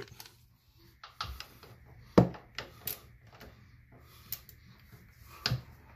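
Scattered metallic clicks and clinks of a socket wrench being handled and fitted onto a transmission bolt, with one sharp clank about two seconds in.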